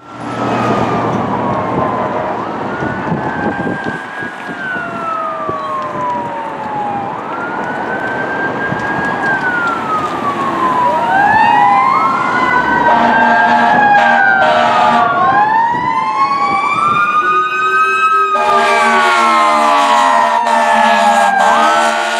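Fire engine's siren wailing in slow rising and falling sweeps, with a second siren overlapping from about ten seconds in. From about eighteen seconds a loud steady horn blares over the sirens as the engine draws close.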